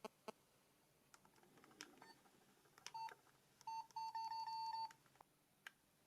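Nokia 5510 phone being operated: faint clicks of its keys being pressed, and the phone's short, high electronic beeps, one about halfway through and then a quick run of beeps lasting about a second.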